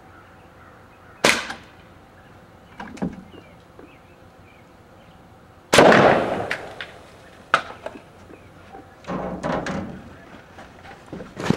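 A pop bottle pressurized with baking soda and vinegar bursts with a single loud bang about six seconds in, trailing off over about a second. Before it come a sharp crack and a smaller one, typical of a CO2 BB pistol firing at the bottle. Scattered clicks of falling debris follow the bang.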